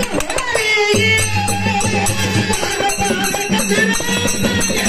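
Dollina pada folk music: small hand cymbals struck in a fast, steady rhythm over a held low drone that enters about a second in, with a voice singing.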